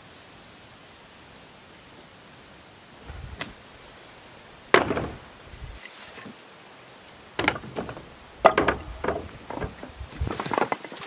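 A series of sharp, irregular knocks and clatters, sounding like hard objects striking each other, the loudest about five and eight and a half seconds in and coming more often in the second half.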